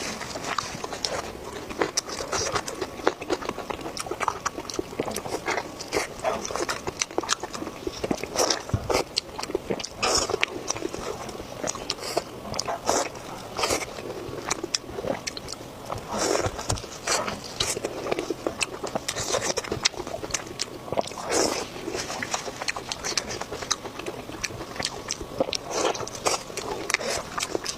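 Close-up eating sounds: chewing spicy pork belly, with a dense stream of short wet clicks and smacks from the mouth.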